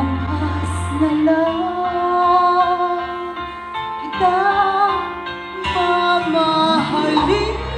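A woman singing a melody into a microphone over instrumental accompaniment. The deep bass of the accompaniment drops out about a second in and comes back near the end.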